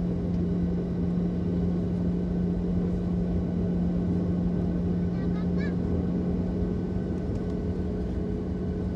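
Jet airliner engines running steadily, heard from inside the passenger cabin as a constant low hum with a rumbling background.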